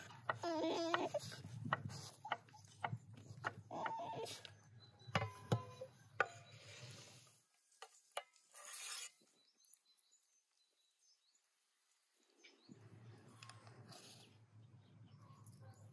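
Two puppies play-fighting: a short wavering whine or growl about half a second in, then scattered yips, snaps and scuffling for several seconds. After about seven seconds this gives way to a brief rustle and then quiet outdoor background.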